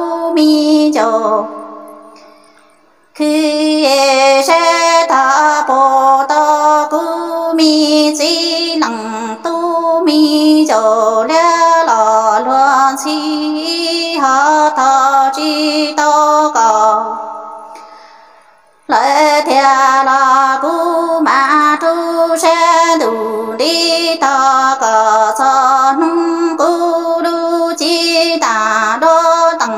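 A woman singing Hmong kwv txiaj (sung poetry), one voice in long wavering, gliding phrases. The voice fades into short breaks between phrases, about two seconds in and again near eighteen seconds.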